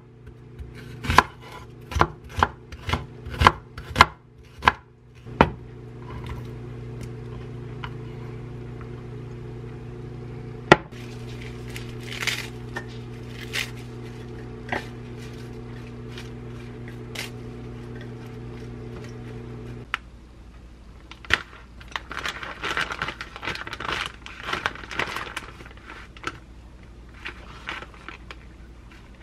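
Kitchen knife slicing an onion on a wooden cutting board: about nine sharp chops in the first five seconds. Under them a steady electrical hum, typical of a microwave oven running, cuts off about twenty seconds in. After that come scattered light clicks and a stretch of crinkly rustling.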